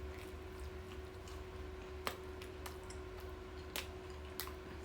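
Steady low hum with a handful of faint, sharp clicks, the clearest about two seconds in and twice more near the end.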